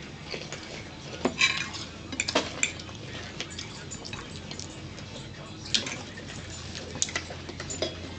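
A metal fork clinking and scraping on a ceramic plate as pizza is cut and picked up, in scattered sharp clicks a second or so apart, over a low steady hum.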